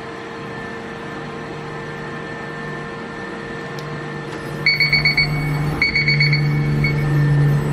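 Steady machine hum from a CNC machining center, then about two thirds of the way in a high electronic beeper sounds twice: each time a run of rapid pips runs into a held tone, over a louder low hum.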